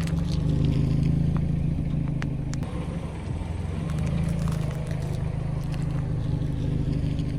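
Car engine running steadily at low revs, swelling slightly a few times, with a few faint sharp cracks about two seconds in.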